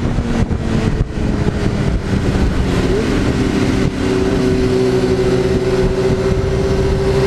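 Honda CBR600F4 inline-four motorcycle engine running at steady cruising revs, heard from the rider's seat with wind rush. Its pitch rises briefly about three seconds in, then holds steady.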